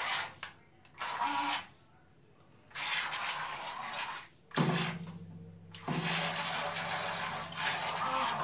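Small quadcopter-motor propellers on a toy RC boat spraying and churning bathtub water in short spurts, then in a longer continuous run from about halfway, with a low motor hum under the later part. The propellers sit only half in the water, so they throw spray rather than bite.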